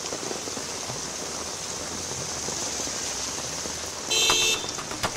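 Heavy rain falling steadily on a road as cars drive through it. A car horn gives one short toot about four seconds in, the loudest sound.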